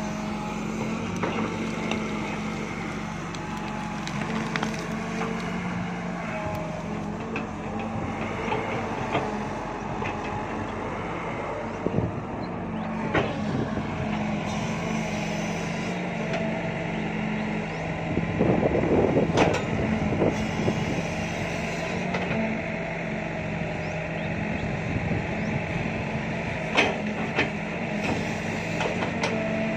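Sumitomo crawler excavator's diesel engine running steadily under hydraulic load as the bucket digs and dumps soil, with a few sharp clanks and a louder, rougher stretch about two-thirds of the way in.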